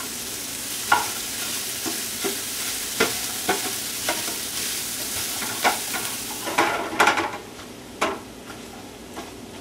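Sausage, onion, celery and garlic sizzling in a nonstick frying pan, with a spatula scraping and tapping the pan at irregular moments as the mixture is stirred and broken up. The sizzle drops off about seven seconds in.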